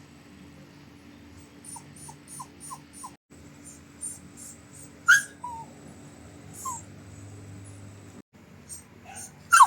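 Puppy whimpering in short, high, falling squeaks: a quick run of five faint ones about two seconds in, louder single whimpers around five and seven seconds, and two more loud ones near the end.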